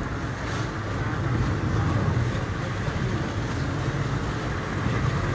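Steady engine and road noise heard from inside the cabin of a moving car, mostly a low, even rumble.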